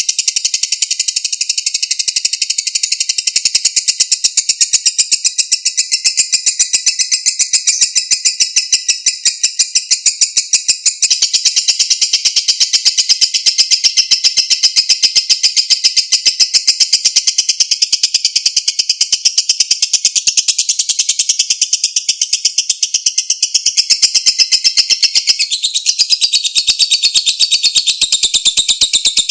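Lovebird giving a long 'ngekek' trill: a very rapid, unbroken chatter of high, shrill notes that runs on without pause, shifting slightly in pitch twice along the way.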